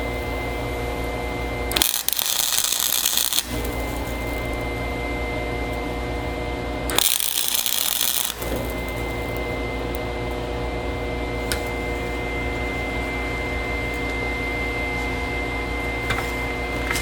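MIG welder welding a nut onto a snapped, rusted bolt stub to get a grip for removing it: a steady, even buzz, twice broken by a brief hiss of a second or so.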